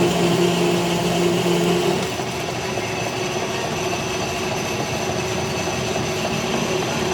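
A machine running steadily: a continuous hum under a noisy hiss, with one lower hum tone dropping out about two seconds in.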